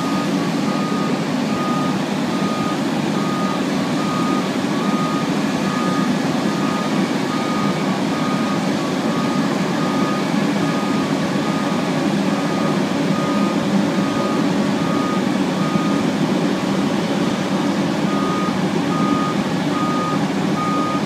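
Vehicle backup alarm beeping steadily and evenly over the running diesel engines of a street sweeper and a garbage truck, as the sweeper's raised hopper tips its load into the truck.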